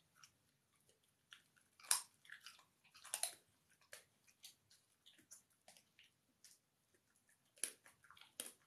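A wire fox terrier eating, with irregular crunching and chewing and the loudest crunches about two and three seconds in and again near the end.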